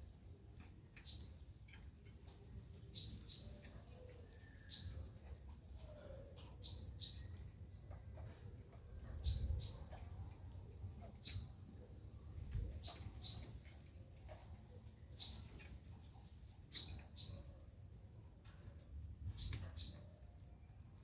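Sunbird calling: short, high, upward-slanting chirps, singly or in quick pairs, about every one to two seconds, over a faint steady high tone.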